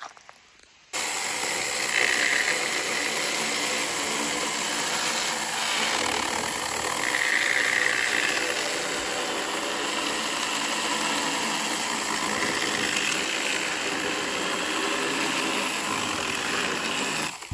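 Saker mini cordless electric chainsaw running, its chain cutting through a dry log. The sound starts suddenly about a second in and holds steady.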